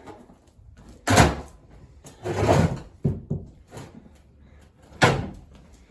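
Two sharp bangs, about a second in and near the end, with a longer rattling scrape and a few lighter knocks between them: parts being knocked and handled on a car in a workshop.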